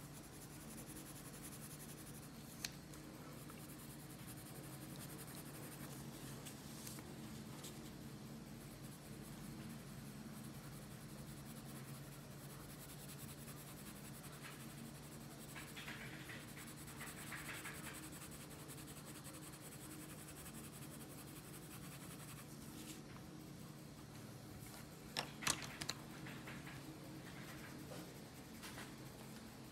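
Colored pencil scratching faintly on paper as an area is shaded in with back-and-forth strokes, over a steady low hum, with a few sharp taps near the end.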